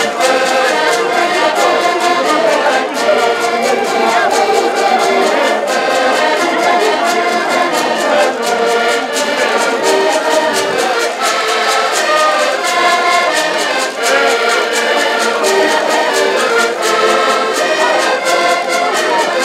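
Ensemble of diatonic button accordions (Portuguese concertinas) playing a lively folk tune together, chords and melody over a steady beat.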